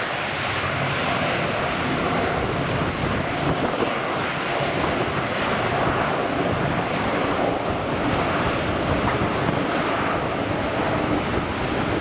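Boeing 787-9 airliner's Rolls-Royce Trent 1000 jet engines giving a steady roar as it rolls out on the runway after touchdown.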